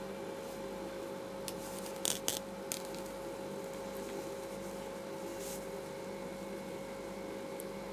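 Handling noise as a cardboard firework rocket is turned over on cloth: a brief cluster of rustles and clicks about two seconds in, over a steady hum with a faint held tone.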